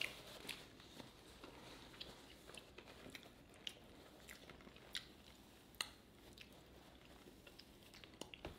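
Faint chewing, with scattered soft clicks from a person's mouth and food as they eat.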